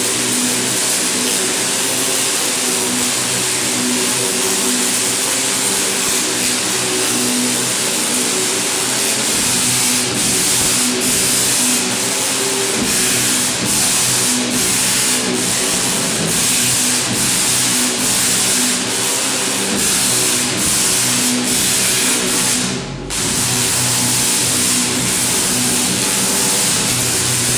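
Powerful Tesla coil discharging: a loud, continuous buzzing crackle of high-voltage arcs, with pitched tones pulsing through it. The discharge cuts out for a moment about three-quarters of the way through.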